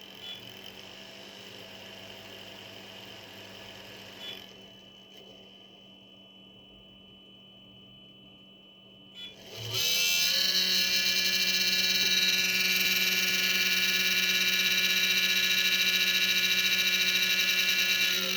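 A 4020 (40x20 mm) radial blower fan humming quietly, with a click about four seconds in where it drops lower. About ten seconds in, it spins up with a quickly rising whine, then runs loud and steady with a high whine over a low hum.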